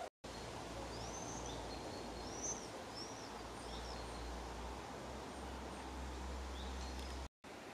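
Outdoor ambience: small birds chirping, a handful of short high calls in the first few seconds, over a steady hiss and a low rumble. The sound drops out briefly at the very start and again just before the end.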